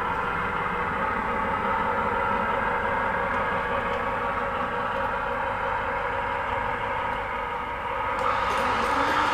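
A 00 gauge model diesel multiple unit running on the layout: a steady drone with several held tones. Near the end a new tone rises and the sound grows a little louder.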